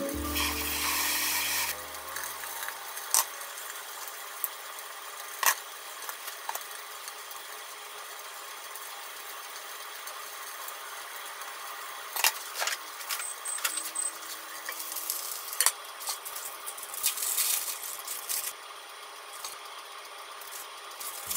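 Food frying under a lid in a pan, a steady sizzle. Over it come sharp knife taps on a plastic cutting board as a tomato is sliced, with a quicker run of taps and handling sounds near the end.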